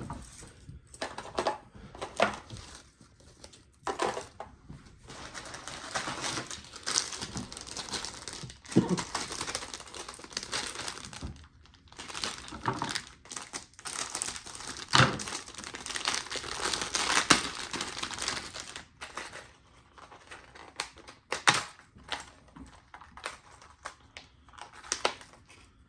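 Plastic lure packaging crinkling and rustling as it is handled and unwrapped, with scattered sharp clicks.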